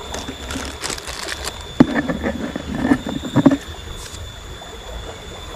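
Small clear plastic bait bag crinkling and rustling in the hand, with a sharp click partway through, over a faint steady stream rush.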